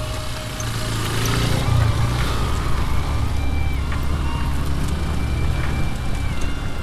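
Motorcycle engine running steadily at low revs as the bike rides along, a deep low-pitched sound that grows a little louder about a second in.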